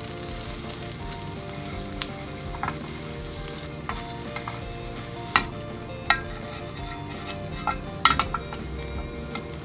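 Egg sizzling in an oiled rectangular tamagoyaki pan while a slotted turner rolls the omelet. Sharp taps and scrapes of the turner on the pan come several times, loudest around five, six and eight seconds in.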